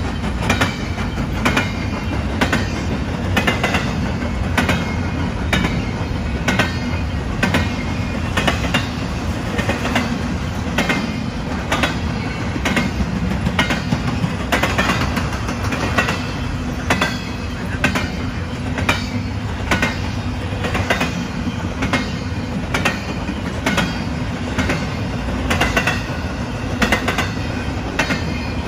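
Empty intermodal freight cars of a BNSF train rolling past at speed: a steady rumble with the wheels clicking over rail joints about twice a second.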